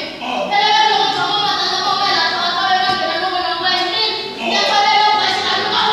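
A high voice singing long, held notes with no instruments, breaking off briefly about four seconds in before going on.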